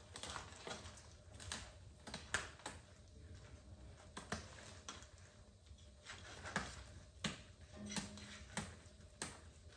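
Faint, irregular clicks and taps of a knife working on fish being cleaned, roughly one every half second to second.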